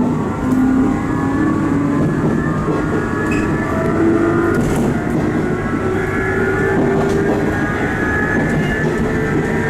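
Inside a JR 719 series electric train car under way: the GTO-VVVF inverter and traction motors whine, several tones climbing in pitch as the train gathers speed. Under them is a loud rumbling 'jet' noise from a bogie, which the owner puts down to bearings worn loose with age.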